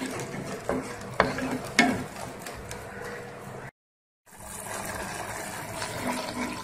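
Mustard paste frying in hot oil in a kadai, stirred with a wooden spatula: steady sizzling with a few knocks and scrapes of the spatula against the pan in the first two seconds. The sound cuts out briefly about two-thirds of the way through, then the sizzling goes on.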